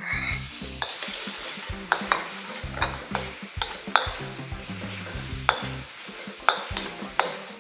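Chopped garlic sizzling in hot oil in a seasoned wok, the sizzle starting at once as the garlic goes in. A metal wok ladle stirring it clicks and scrapes against the pan irregularly, about once or twice a second.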